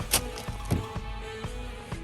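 Background music: held notes changing every half second or so, with sharp percussive hits, the loudest just after the start.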